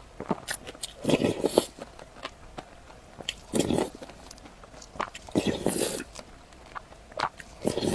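Close-up eating sounds: biting and chewing crunches in four short bursts about two seconds apart, with small clicks in between.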